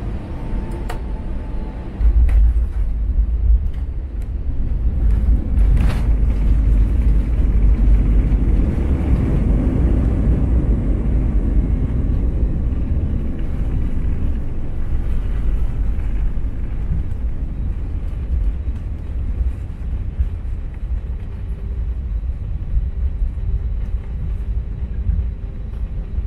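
Cabin sound of an Airbus A320-200 rolling on the runway, heard from a seat over the wing: a heavy low rumble that jumps up suddenly about two seconds in, as at touchdown, and eases off gradually over the following seconds as the airliner slows with its wing spoilers raised.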